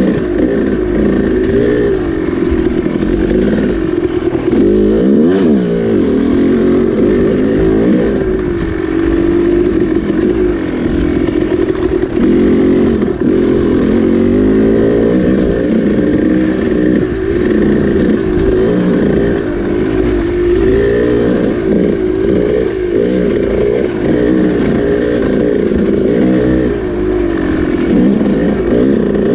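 Dirt bike engine running under way on a trail, its pitch rising and falling continually as the throttle is worked.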